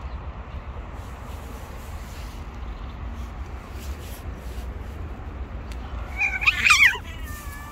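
A domestic cat gives one loud, wavering meow lasting under a second, about six seconds in, its tail fading away downward. A low steady rumble runs underneath.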